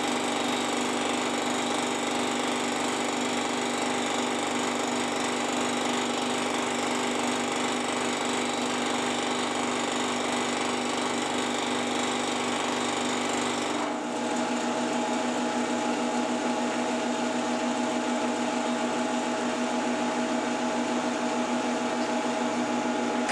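Milling machine running with its cutter taking a cut across a metal workpiece, a steady machine sound with a cluster of steady tones. About two-thirds of the way through the tone shifts and the deepest sound drops away, as the cutter clears the end of the part.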